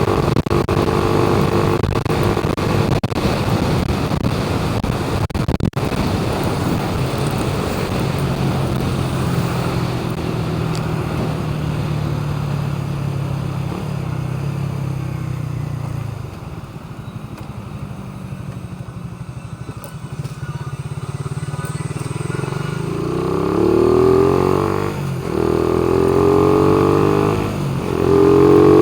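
Newly installed car alarm siren sounding, cycling through its tone patterns: steady held tones that change in steps, then loud repeated rising wails in the last few seconds.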